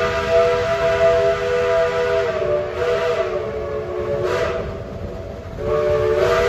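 Steam locomotive whistle blowing a chord of several notes at once. One long blast sags a little in pitch and cuts off about four and a half seconds in, and a second blast starts a second later, over the low rumble of the approaching engine.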